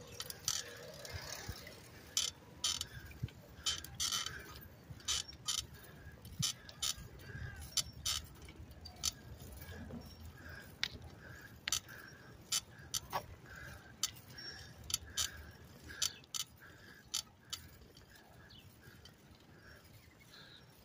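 Bicycle rolling along a paved path, its parts clicking and rattling in sharp irregular ticks over a low rumble, with a faint regular chirp about twice a second.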